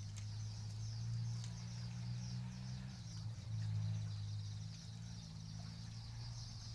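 Small birds chirping continuously in a quick, repeated high twitter, over a steady low drone.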